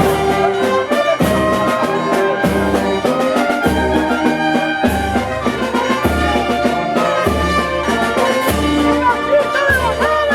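Brass band playing a slow processional march: trumpets and trombones over a low drum or bass beat about every second and a quarter.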